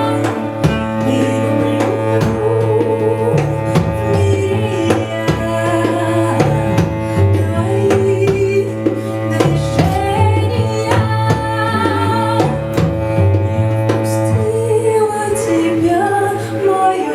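Ethno music played live on two cellos, djembe and a woman's voice: the cellos hold low sustained notes under a moving melody, with hand-drum strokes throughout.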